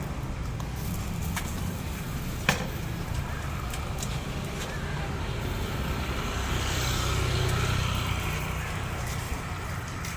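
Road traffic running steadily, with one vehicle passing and swelling louder about seven seconds in. A single sharp clack about two and a half seconds in.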